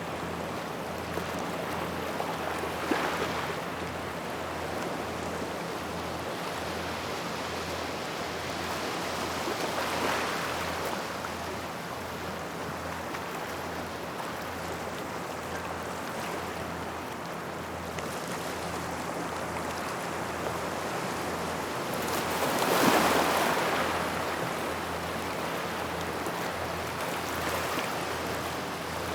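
Small waves washing up a gravel shoreline: a steady wash of water over stones, with a wave surging in about every several seconds, the biggest about two-thirds of the way through.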